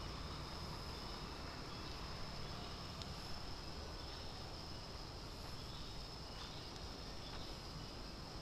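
Insects calling in one steady, unbroken high-pitched drone, over a constant low rumble.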